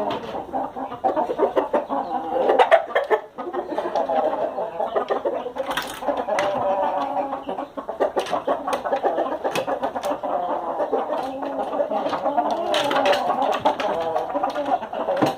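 Chickens clucking continuously, with sharp clicks here and there.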